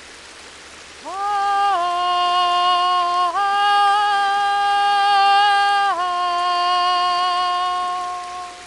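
A woman's voice singing long wordless held notes in a vocal improvisation: it scoops up into the first tone about a second in, then shifts by small steps through about four sustained pitches before stopping near the end. A steady rush of river water runs underneath.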